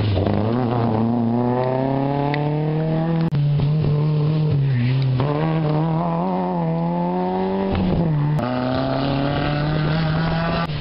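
Rally cars accelerating hard past at full throttle, one after another, each engine climbing in pitch and dropping back at the gear changes. The sound switches abruptly from one car to the next several times.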